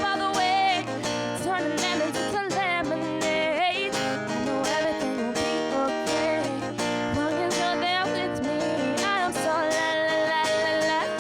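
Acoustic guitar strummed in a steady rhythm, with a woman's voice singing long, wavering notes over it.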